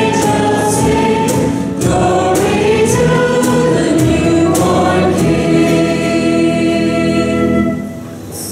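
Group of voices singing a hymn together with accompaniment, ending on a held chord that drops away near the end.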